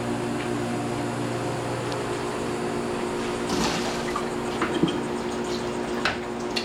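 Microwave oven running: a steady electrical hum under the whirr of its fan. A few light clicks and clatters come in the middle and near the end.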